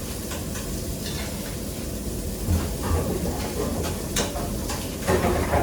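Commercial kitchen sound: a steady hiss and low rumble, with a few sharp clinks of utensils or pans.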